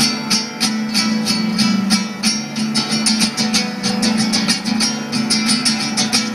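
Acoustic guitar strummed in a steady, quick rhythm, about four strokes a second.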